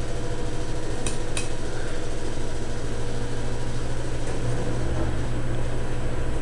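Steady mechanical hum and whir of running equipment, with two sharp light clicks about a second in.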